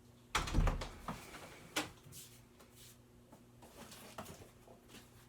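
Handling noises: a heavy thump about half a second in, followed by a few sharp clicks and lighter knocks.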